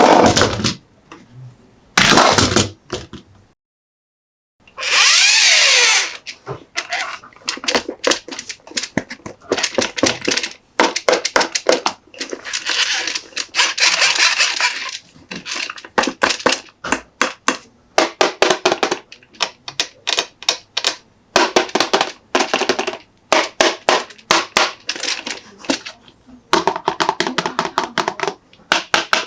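Close-up hands handling small toy trucks and their plastic packaging: fast runs of taps and clicks with a few longer scratchy, rustling stretches.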